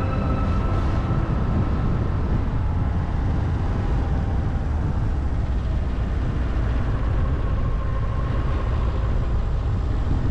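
A car driving, heard as a steady low rumble of road and engine noise with no change in pace.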